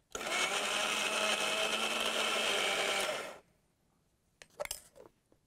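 Electric mixer-grinder running steadily for about three seconds with a steel jar on top, blending leftover potato-cauliflower curry into a smooth wet paste, then cutting off. A few light knocks follow near the end.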